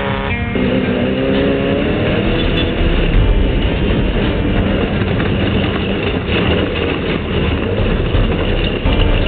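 Off-road race vehicle's engine running hard at speed, its pitch climbing from about half a second in as it accelerates, then holding a steady loud din.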